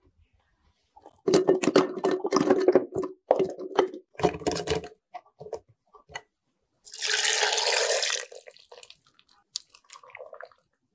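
Water sloshing and splashing irregularly for a few seconds, then about a second and a half of steady running water, like a kitchen tap, followed by a few light knocks.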